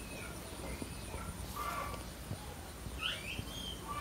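Newborn puppy squeaking, several short, faint high-pitched cries, some rising in pitch, the clearest near the end.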